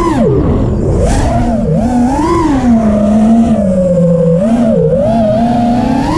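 FPV quadcopter's electric motors and propellers whining, the pitch swooping up and down as the throttle changes, with a sharp drop about a quarter second in and quick dips near the end. A constant low rushing noise runs underneath.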